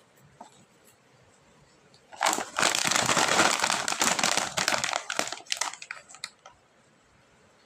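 Plastic snack wrapper crinkling as it is handled, a dense crackle of many small clicks lasting about four seconds from about two seconds in, with a few faint ticks before and after.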